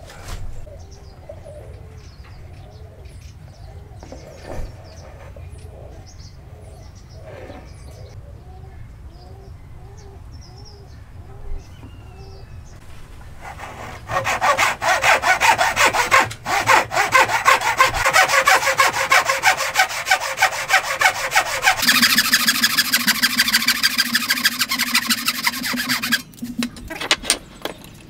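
A fine-toothed hand saw cutting a clamped wooden block in fast, steady strokes. The sawing starts about halfway through, changes tone partway and stops shortly before the end. Before it, the sound is quieter, with birds calling.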